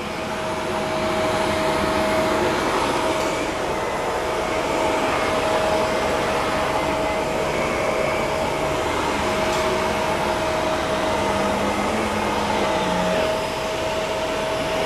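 Shark vacuum cleaner running steadily while vacuuming carpet, a constant motor whine over the rush of suction.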